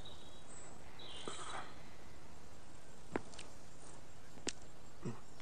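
Quiet outdoor ambience: a steady hiss with four or so scattered sharp clicks and a brief high bird chirp about a second in.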